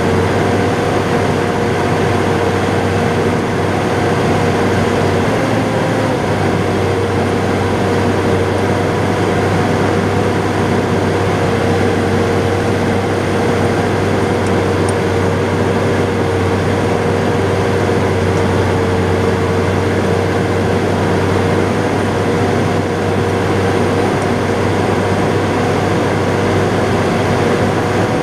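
John Deere 7800 tractor's six-cylinder turbo diesel running steadily at working revs, heard from inside the cab. Its pitch shifts slightly about five seconds in, then holds.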